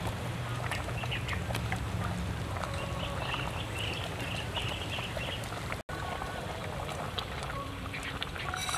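Metal ladle stirring boiling vegetable soup in an aluminium pot, with scattered clinks and scrapes against the pot. Animal calls sound in the background, and the sound cuts out briefly about six seconds in.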